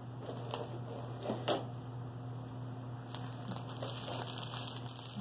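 Crackling and rustling of the clear plastic film covering a diamond painting canvas as hands unroll and smooth it, with scattered light ticks and taps.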